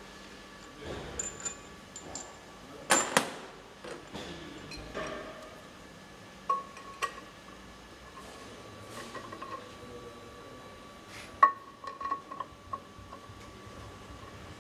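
Metal tools and parts clinking and knocking in a workshop, with scattered sharp strikes, the loudest about three seconds in and again near the end, some leaving a short metallic ring.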